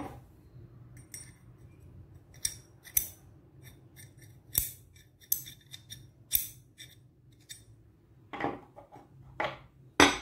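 Sharp metal clicks and clinks of a steel adjustable wrench and its loose movable jaw knocking together as they are handled, then a few fuller knocks as the parts are set down on a wooden table, the loudest near the end.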